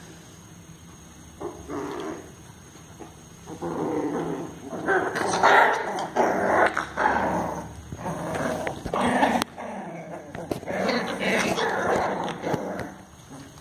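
Two month-old pit bull puppies play-fighting, growling in repeated rough bursts. After a brief growl early on, the growling runs almost without a break from a few seconds in until shortly before the end.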